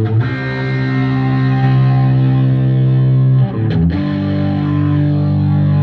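Distorted electric guitar played through a computer-based rig, two long held chords, the second starting about three and a half seconds in.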